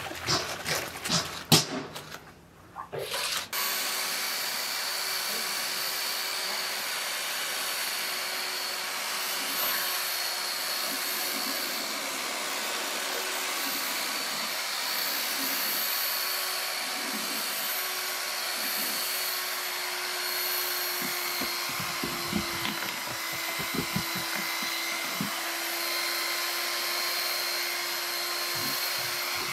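Handheld electric drill with a paddle mixer running steadily, whipping a frothy foam mix in a bucket. Before it starts, about three and a half seconds in, there are knocks and splashes of liquid being scooped and poured.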